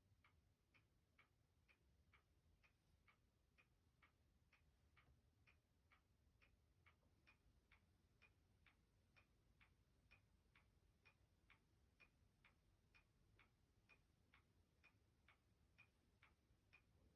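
Faint, steady ticking of a clock, about two and a half ticks a second, over quiet low room hum.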